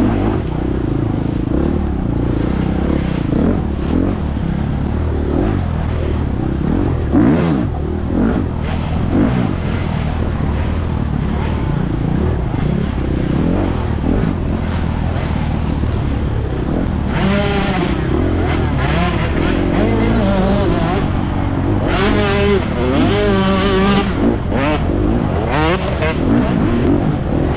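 FX350 dirt bike engine running hard in an off-road race, revving up and down continuously. In the second half the pitch rises and falls rapidly as the throttle is worked.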